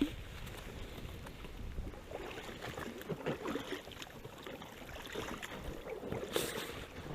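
Water splashing and sloshing with many small irregular knocks and ticks as a fishing net is handled in a river, one slightly louder splash about six seconds in.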